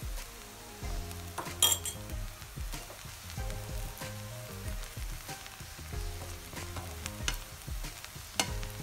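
Vegetable fried rice being stirred in a hot pan: a spatula scraping and tapping against the pan over a light sizzle, with a sharper clank about one and a half seconds in.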